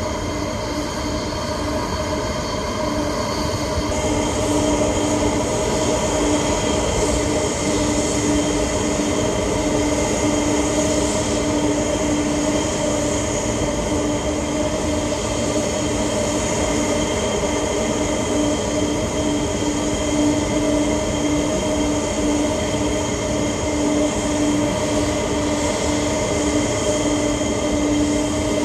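Jet aircraft engines running steadily: a continuous loud rush with a droning hum and a pulsing low tone, growing slightly louder about four seconds in.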